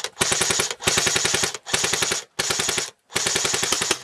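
A rifle right beside the camera firing on full auto in about five rapid bursts, each half a second to a second long, at roughly fifteen to twenty shots a second.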